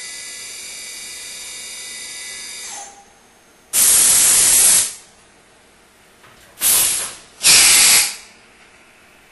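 CNC vertical milling machine's spindle whining steadily, then spinning down about three seconds in. Then three loud hisses of compressed air, the first about a second long and the next two shorter, as the machine goes through an automatic tool change.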